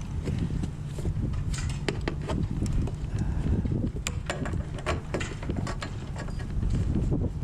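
Wind buffeting the microphone as a steady low rumble, with scattered sharp clicks and knocks throughout.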